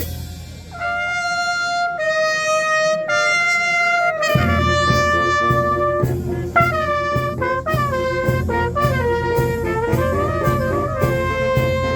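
A youth fanfare band of brass and drums plays. First the brass alone hold long notes that step from pitch to pitch; about four seconds in the drums come back in with a steady beat and the brass carry a quicker melody over it.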